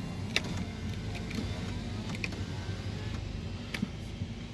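Mercedes-Benz SLK200 driving slowly over an unpaved road, heard from the cabin with the window down: a steady low rumble of tyres and road with a few faint clicks. No suspension rattle comes through now that the loose link bolt has been tightened.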